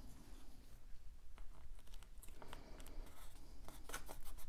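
Cardstock being handled, folded and pressed down by hand: faint paper rustling with light clicks and taps, coming more often toward the end.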